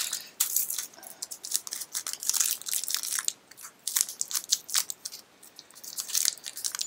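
Packaging crinkling and crackling in irregular bursts as a Disney trading pin is unwrapped by hand.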